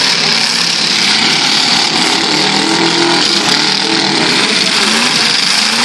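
Demolition derby cars' engines running and revving together in a loud, steady din, with several engine pitches rising and falling.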